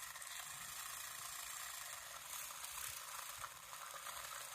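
Small handheld electric coffee frother running steadily, whisking instant coffee powder and sugar in a cup into a froth.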